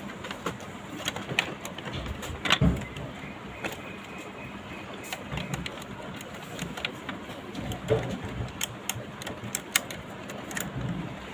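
Scattered light clicks and knocks of hands handling a radio-cassette player's plastic case and cassette deck mechanism, with a louder knock about two and a half seconds in and a quick run of clicks near the end.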